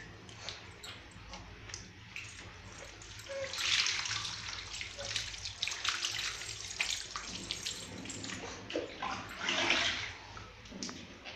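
Water poured by hand over a baby's back, splashing off wet skin onto a tiled floor, with two louder pours, one about three and a half seconds in and one near the end, and small splashes and drips between.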